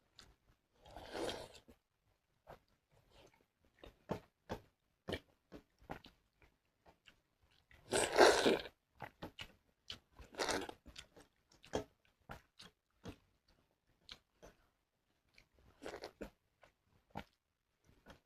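Close-miked eating sounds of pakhal (watered rice) with fried mushrooms: many small wet mouth clicks and chewing, broken by a few louder noisy bites. The loudest bite comes about eight seconds in.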